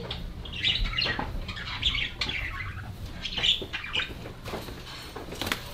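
Caged pet budgerigars chirping and chattering in short, scattered bursts.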